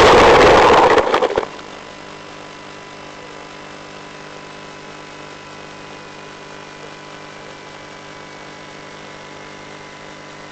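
Onboard audio of a model plane landing with its motor off: a loud rush of air and ground noise as it skids in, with a few knocks, stopping suddenly about a second and a half in. After that the plane sits still and only a steady, faint electrical hum of several even tones remains, from the onboard video gear.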